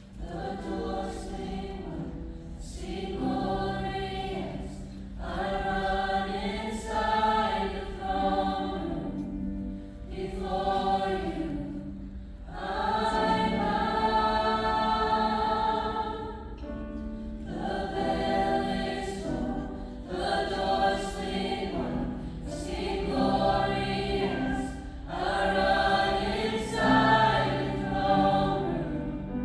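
A choir singing a worship song in long, held phrases a few seconds each, with short breaks between them.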